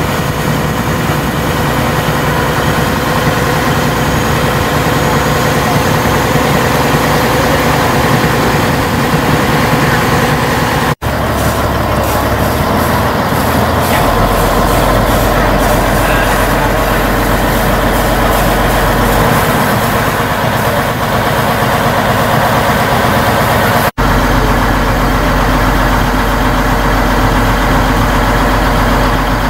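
Boat engine running steadily under way, mixed with rushing noise. The sound drops out twice for an instant, about a third of the way in and again near the end.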